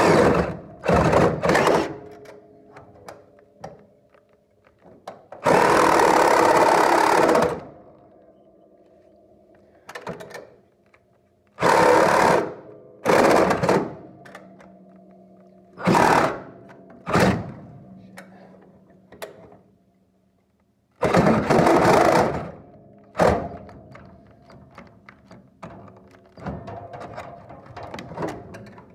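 Power tool run in repeated short bursts, each from a fraction of a second to about two seconds long, with a faint steady hum between them.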